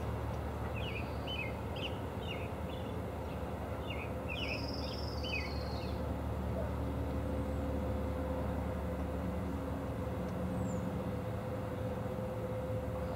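Motor boat engine running steadily across the water, a low even rumble with a steady hum. Over it a small bird gives quick chirps and a short trill during the first half.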